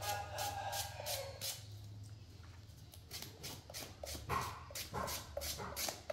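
A baby macaque gives a pitched call lasting about a second and a half near the start, with shorter calls a few seconds later. Under it runs a hand peeler scraping a vegetable in quick regular strokes, about three or four a second.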